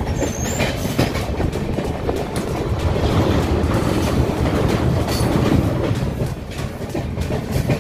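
A moving passenger train running on the rails, heard from inside the coach: a steady loud rumble of wheels on track with occasional clacks over the rail joints.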